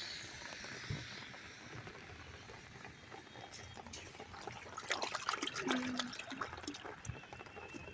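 Rainwater trickling and dribbling out of a drain pipe, with a flurry of small clicks and splashes about five to six seconds in.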